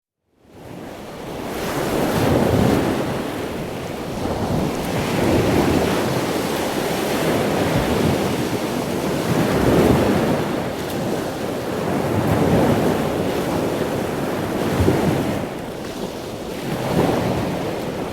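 A loud rushing noise that starts about half a second in and swells and eases every two to three seconds.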